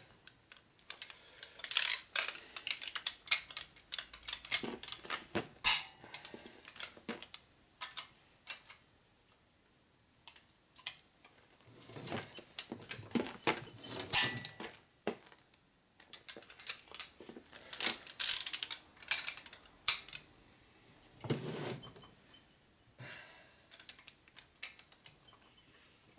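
Hand ratchet wrench clicking in quick bursts as cylinder head bolts on a Harley-Davidson shovelhead engine are tightened, with a few sharper knocks of metal tools and short pauses.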